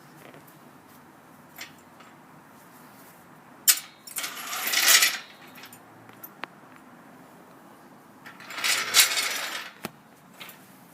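Metal tools and parts clinking while a starter motor is worked into place. There are a few sharp clicks and two rasping metallic scrapes of about a second each.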